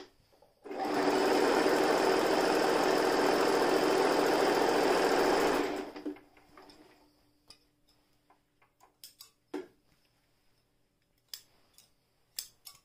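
Toyota Jeans JS021 electric sewing machine stitching at a steady speed. It starts about a second in, runs evenly for about five seconds, then stops. A few light clicks and taps follow as the fabric is handled.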